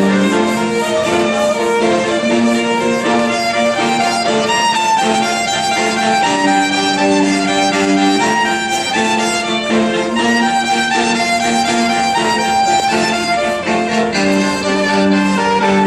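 Electric violin playing a melody over sustained low notes that change every few seconds.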